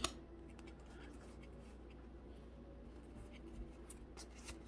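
Faint handling of a stack of Pokémon trading cards: a sharp click at the start, then light rubbing of cards and a few soft ticks near the end as they are split between the hands, over a low steady room hum.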